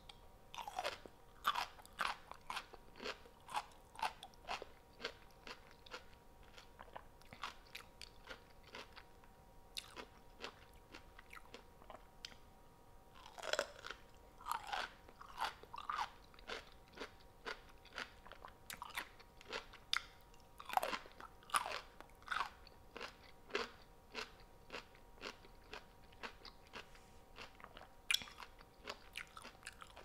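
Close-miked eating of crunchy food: a person biting and chewing with rapid sharp crunches, in several bouts with quieter gaps between them. A faint steady hum sits underneath.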